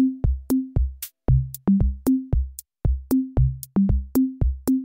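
Background electronic music: a drum-machine beat with kick-drum hits and short bass notes, about three hits a second.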